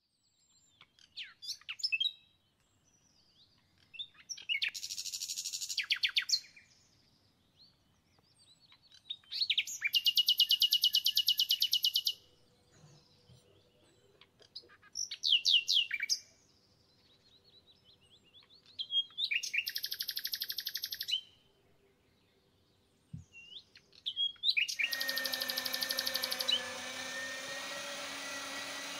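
A songbird singing repeated phrases, every few seconds: a few high chirps running into a fast, even trill. About 25 seconds in, an electric meat grinder starts and runs with a steady hum while the bird keeps singing over it.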